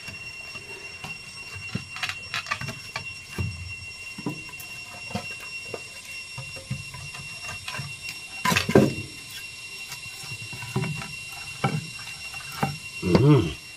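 Wood fire crackling in a mud hearth, with scattered clicks and knocks as planks of firewood are pushed into the firebox. A faint steady high tone sits underneath. Two louder sounds stand out, about eight and a half seconds in and near the end.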